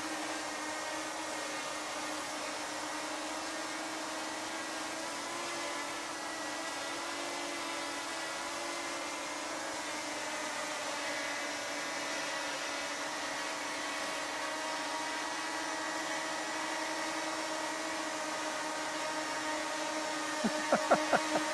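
DJI Mini 4K quadcopter hovering close by on newly replaced propeller blades, its propellers giving a steady whine. A few short, loud sounds break in near the end.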